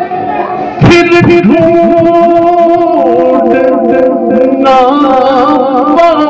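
Male voice singing a wordless, drawn-out melodic line of an Urdu hamd over a steady held drone. A sudden loud hit comes about a second in, followed by falling tones.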